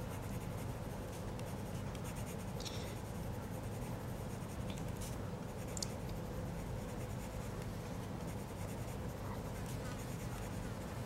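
Coloured pencil scratching faintly on paper in steady shading strokes as a cold grey No. 6 pencil darkens the drawn cracks, with a few light ticks of the pencil tip.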